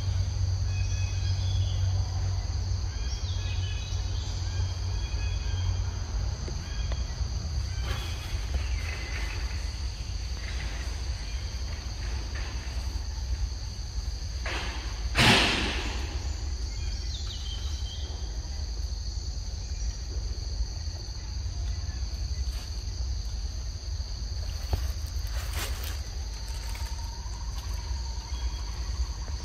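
Forest ambience dominated by a steady, high-pitched drone of insects, over a low rumble, with a few short bird-like chirps and clicks. One brief loud noise stands out about halfway through.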